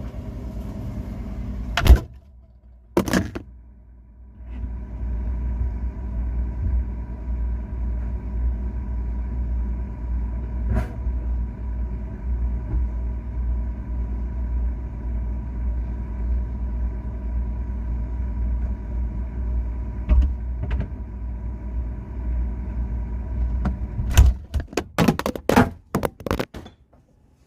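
A refrigerator door shutting with a sharp knock. A couple of seconds later the fridge's motor starts and hums steadily for about twenty seconds, then stops, followed by a quick run of knocks and clatter near the end.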